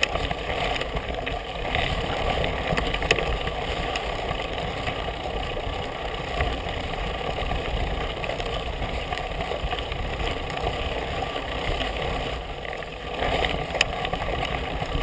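Fat-tyre mountain bike rolling fast down a dirt singletrack: steady rumble of the wide tyre on the trail and wind on the bike-mounted camera, with a few sharp clicks and rattles from the bike.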